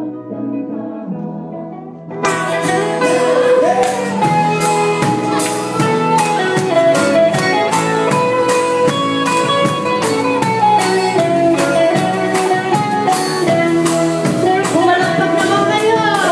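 Live folk-rock band with a drum kit and electric and acoustic guitars, playing and singing. It starts soft with held notes, and about two seconds in the full band comes in with the drums and a sung vocal.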